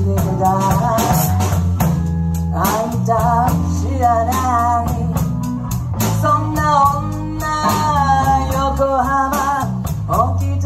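A live band playing a slow blues: steady bass and guitar chords under a bending, wavering lead melody.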